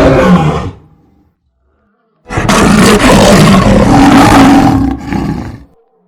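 Lion roaring: one roar trails off in the first second, then after a second or so of silence another loud roar lasts about three seconds, dipping briefly near its end before it stops.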